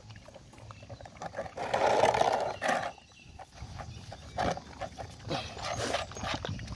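Puppies eating from plastic bowls, one giving a harsh growl about two seconds in as they jostle over the food, with shorter growls and lapping and chewing around it.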